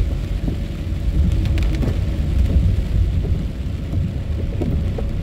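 Inside a moving car in heavy rain: a steady low rumble of tyres and engine on the wet road, with rain hitting the car and the windshield wiper sweeping across the glass.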